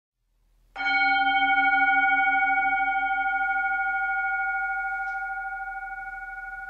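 A handheld brass singing bowl struck once with a wooden mallet about a second in, then ringing on with several overlapping tones that fade slowly, its lowest tone pulsing.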